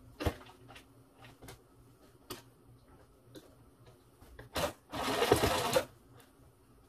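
Sewing machine presser foot being swapped from zipper foot to walking foot: scattered light clicks and knocks of small metal parts, then a short loud noisy sound lasting under a second about five seconds in.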